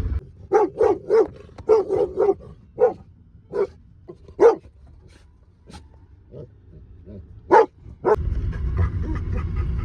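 A dog barking: a quick run of barks at first, then sparser barks, with two loud ones near the end.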